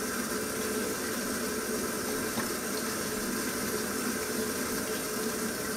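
A spoon stirring soaked beans in a thick sauce inside a crock pot, with wet sloshing and scraping over a steady background hum.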